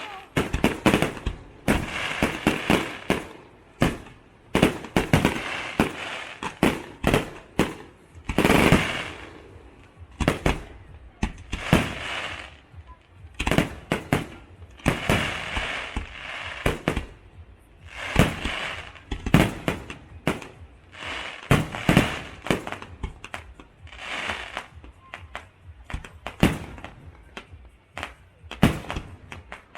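Aerial fireworks bursting in a steady barrage: irregular sharp bangs, several a second at times, with crackling and fizzing between them.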